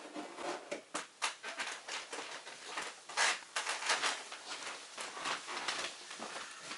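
Irregular taps, clicks and rustling of things being handled on a wooden desk, with a person moving close by.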